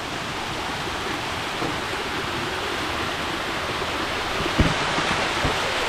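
Steady rushing roar of a large waterfall, growing slightly louder, with a brief low thump about four and a half seconds in.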